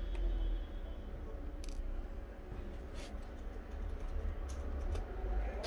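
Scattered light clicks and taps of hands and a small electric screwdriver working at a laptop's keyboard, over a steady low rumble.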